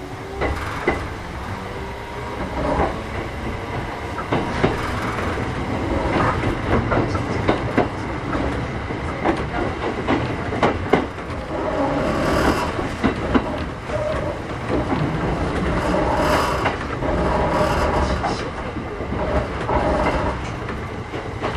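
Kintetsu 1000 series electric train running between stations: steady rolling noise with repeated clacks of the wheels over rail joints.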